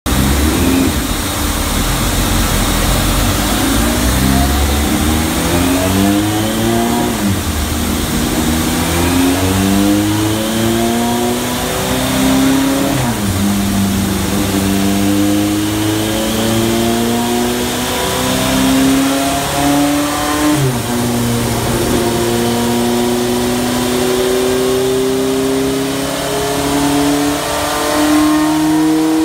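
Kawasaki Z1R's air-cooled inline-four running a pull through the gears on a chassis dyno. The engine note climbs steadily in each gear and drops sharply at three upshifts, each gear's climb longer than the one before.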